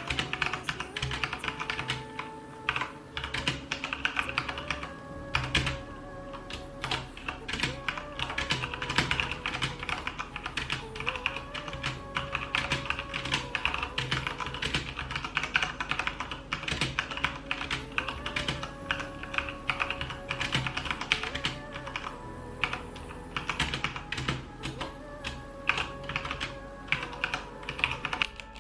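Typing on a Corsair K70 Mk2 mechanical keyboard with Cherry MX Brown switches: a continuous, irregular run of key clicks over background music.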